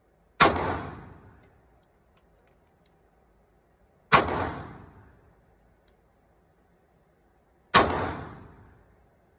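Three handgun shots, evenly spaced about three and a half seconds apart, each a sharp crack followed by about a second of echo off the walls of an indoor range.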